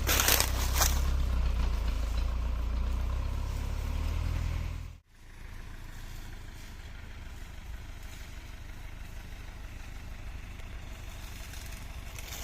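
Off-road 4x4's engine running with a steady low rumble; about five seconds in the sound breaks off sharply and comes back as a quieter, steady engine sound.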